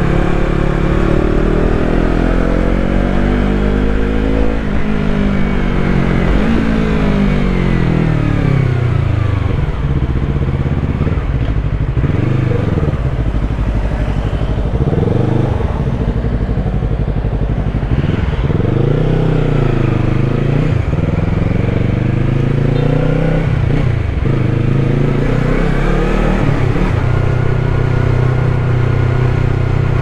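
Yamaha MT-03's 321 cc parallel-twin engine on the move, its revs rising and falling again and again with throttle and gear changes, then holding steady near the end.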